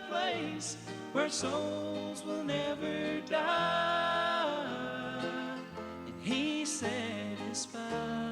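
Country-gospel music with singing over a bass line that steps from note to note, played back from an old cassette tape.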